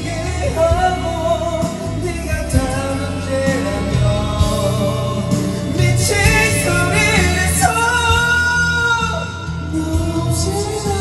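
Karaoke backing track of a Korean pop ballad with a person singing the melody along with it, holding one long note about eight seconds in.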